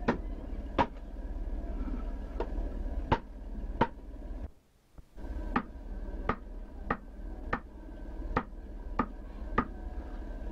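Hand adze chopping into a wooden carving, a sharp knock roughly every two-thirds of a second, over a steady hum from a Super 8 sound-film track. The knocking drops out for about half a second near the middle.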